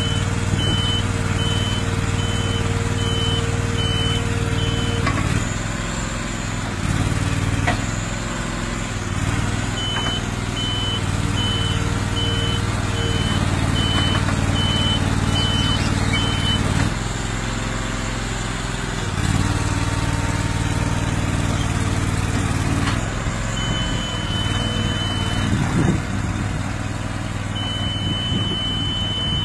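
A miniature tracked car-moving crawler runs steadily under the load of a car, its motor note shifting a few times as it moves. Its warning beeper pulses about twice a second in stretches and gives longer steady tones near the end.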